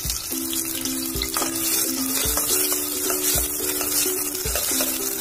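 Chopped onions sizzling steadily as they fry in hot oil in a stainless steel pressure cooker, stirred with a spoon.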